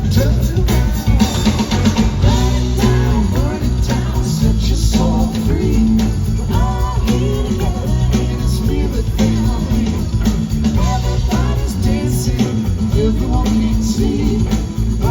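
Live rock band playing: singing over electric guitar and drum kit, with a heavy low end.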